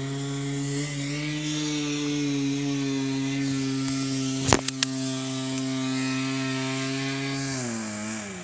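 A small engine running at a steady high speed. A few sharp clicks come about halfway through, and near the end the revs fall away.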